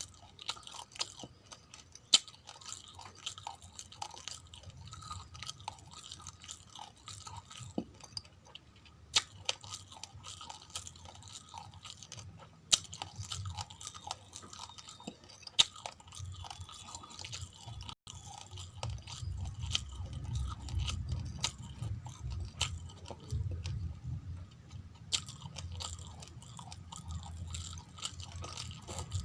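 Close-up chewing and crunching of uncooked rice grains: a dense run of small crackles with a few sharper cracks spread through.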